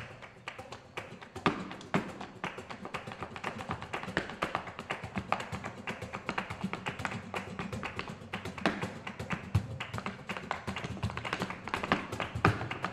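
Male flamenco dancer's zapateado footwork: a rapid, uneven run of heel and toe strikes on hard ground, with several louder stamps standing out.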